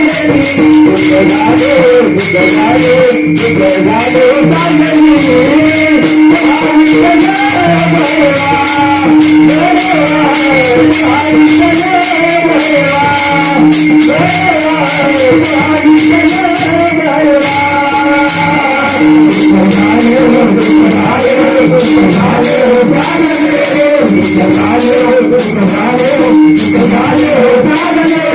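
Marathi devotional bhajan music: a melody wavering over a steady held drone, with small metal hand cymbals striking a regular beat.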